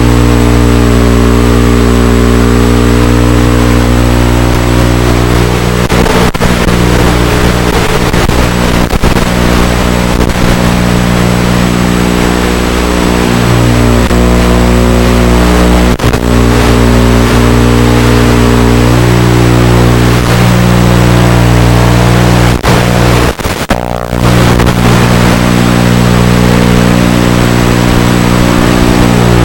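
FPV quadcopter's brushless motors and propellers running, a loud buzzing drone whose pitch shifts with the throttle, with a few brief dips.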